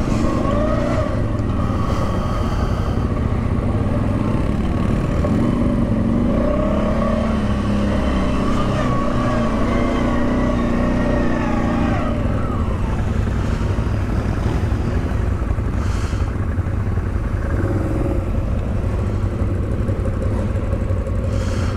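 Off-road vehicle engine driving over rough terrain, its pitch rising and falling with the throttle, then easing off about twelve seconds in, over a steady low rumble. A couple of short knocks come later.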